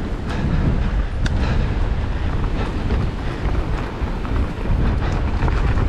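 Strong wind buffeting the microphone, a dense rough rumble while riding a mountain bike down a forest trail, with a few sharp clicks, one about a second in.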